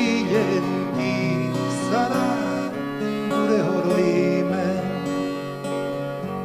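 A man singing to his own acoustic guitar accompaniment, a wavering melody over the guitar's sustained plucked chords.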